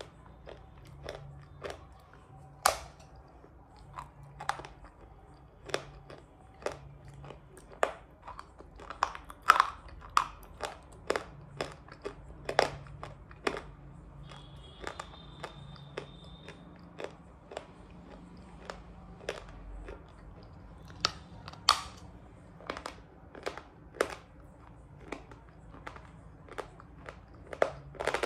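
Thin black shale (eating slate/clay) being bitten and chewed, giving sharp dry crunches at an irregular pace of about one or two a second, with some quick runs of several crunches together.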